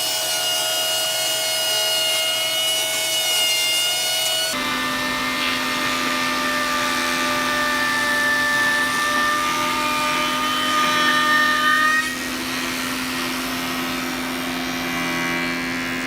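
Electric power tools running on wood with a steady whine. The sound changes abruptly about four and a half seconds in, to a different, lower-pitched motor, and drops in level about twelve seconds in.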